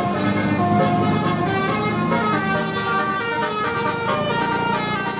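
Bus 'telolet' multi-tone air horn (Basuri type) playing a melody. Its chords of horn notes change pitch in quick steps.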